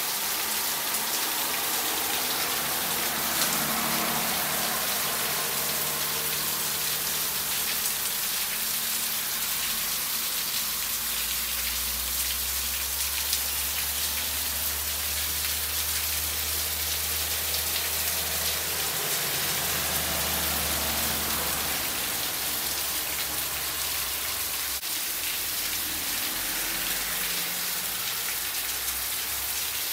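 Heavy rain pouring down steadily on a paved road and roadside shrubs. A low engine rumble from a passing truck on the wet road runs through the middle.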